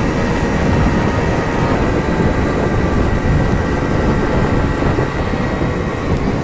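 Wind rushing and buffeting over the microphone of a moving Honda Super Cub 50 motorcycle, its small air-cooled single-cylinder engine running steadily underneath.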